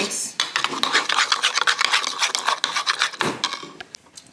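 Metal spoon stirring flour and water into a paste in a small bowl, scraping the sides and bottom in quick repeated strokes that die away about three seconds in.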